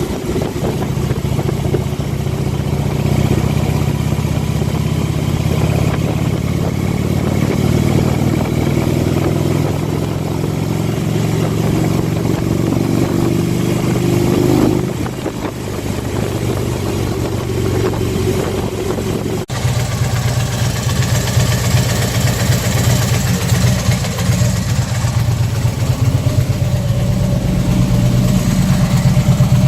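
Harley-Davidson Ultra Limited's 103 cubic-inch V-twin engine running, with a faint high-pitched chirping over the engine note. The chirp is of unknown cause and has been ruled out as coming from the muffler brackets or engine mounts.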